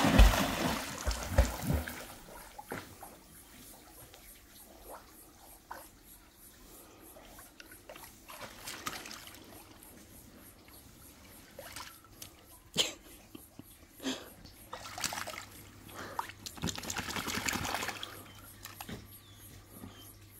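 A dog jumping into a swimming pool with one big splash at the start. It is followed by scattered smaller splashes and trickling, dripping water as the dog swims and scrambles onto an inflatable float.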